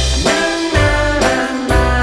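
Upbeat background music with brass-like melody notes over a steady bass beat.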